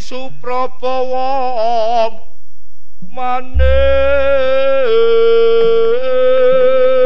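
A solo voice sings a Javanese vocal line for wayang orang, wavering with vibrato, pausing for about a second, then holding a long note that steps down in pitch. A deep gong stroke sounds about three and a half seconds in.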